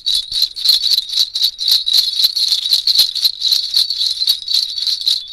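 Small horse bells shaken by hand close to the microphone, jingling in a steady quick rhythm: a foley effect for the harness bells of a horse.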